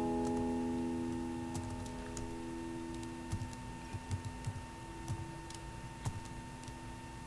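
Computer keyboard keys clicking at an irregular pace as code is typed, over the fading held chord of background guitar music in the first few seconds.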